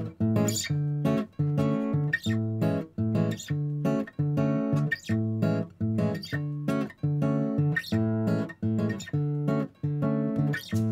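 Background music with plucked chords in a steady rhythm.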